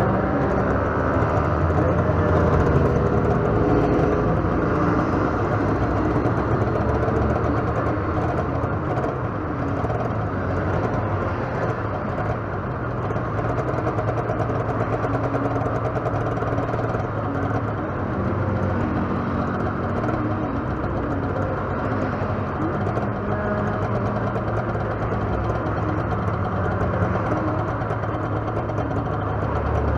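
Motorcycle engine idling steadily under the rider while stopped, with traffic passing. In the first second another engine rises in pitch as a vehicle pulls away.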